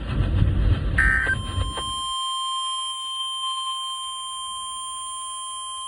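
NOAA Weather Radio emergency alert: the last of three short, harsh digital data bursts (the SAME header) about a second in, then the steady warning alarm tone that comes before a tornado warning is read out.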